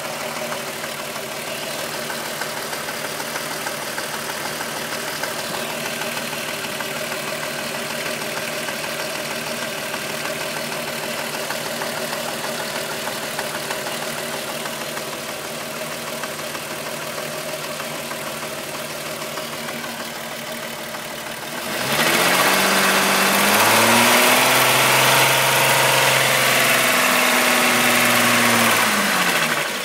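Volkswagen Golf VR6 2.9 narrow-angle V6 idling steadily. About 22 seconds in it is revved, held at higher speed for several seconds, and then drops back toward idle near the end. Its timing chain makes a rubbing noise that the owner says grew louder after he replaced the upper hydraulic chain tensioner.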